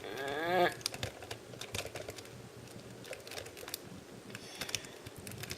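Small plastic clicks and taps as plastic add-on parts are handled and pushed onto an action figure. It opens with a short, rising hummed vocal sound from the person.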